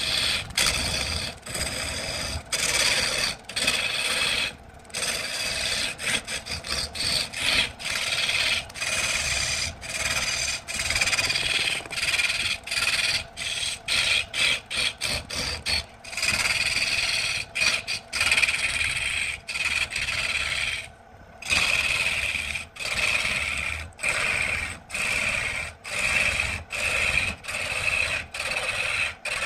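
A turning tool cutting a spinning cedar blank on a wood lathe: a continuous rough shaving scrape, broken by many short breaks as the cut is interrupted.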